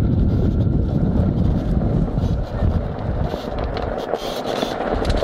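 Wheels of a dog-team training rig rolling and crunching over gravel while a sled-dog team pulls it, with wind buffeting the microphone. The low rumble lightens about three seconds in, leaving more of the crackly gravel crunch.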